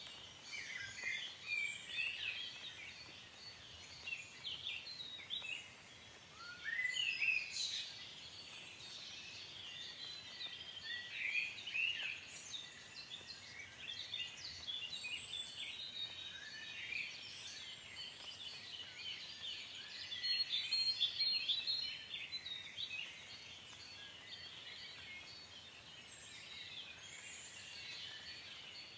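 Several birds chirping and singing at once: a dense run of short, quick high notes with a few rising whistles, busiest about a third of the way in and again about two-thirds through.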